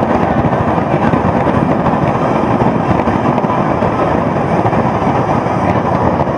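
Dense fireworks barrage: many bursts overlapping into a continuous crackling rumble.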